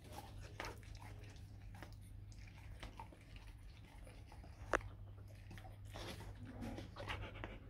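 Faint wet mouth and licking sounds with small scattered clicks as an adult Rottweiler licks a newborn Rottweiler puppy held up to her. One sharper click comes about five seconds in.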